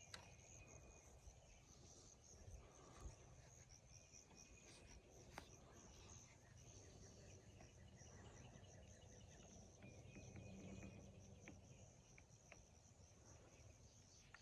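Near silence, with faint high insect chirring in the background and a few faint clicks.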